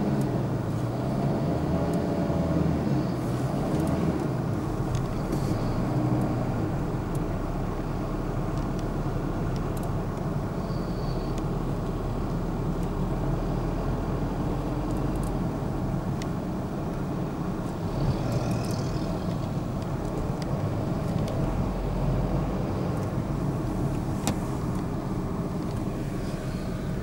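Steady engine and road noise of a moving vehicle heard from inside its cabin, with a light click near the end.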